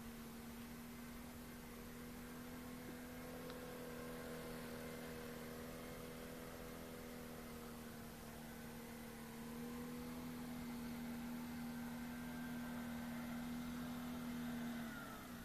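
Mercury 7.5 hp twin-cylinder two-stroke outboard idling steadily in a test barrel of water, on a test run after a water pump change. The pitch dips briefly near the end.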